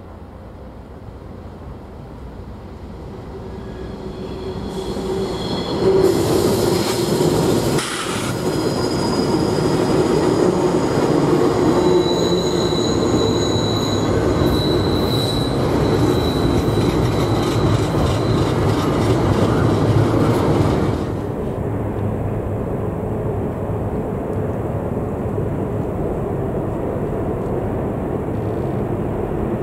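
A Norfolk Southern freight train rolling through the sharp Horseshoe Curve, its wheels squealing against the rails in high whining tones over a heavy rumble of wheels and cars. The sound builds over the first few seconds as the train nears. About two-thirds of the way in, the squeal and hiss drop off suddenly, leaving a steady lower rumble.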